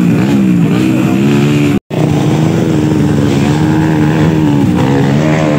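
Several off-road dirt bike engines revving up and down, their pitch rising and falling. The sound cuts out for a split second about two seconds in.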